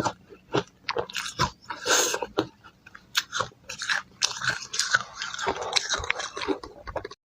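Close-miked biting and chewing of ice dusted with matcha powder: a quick run of sharp, crisp crunches, a few each second, that cuts off abruptly just before the end.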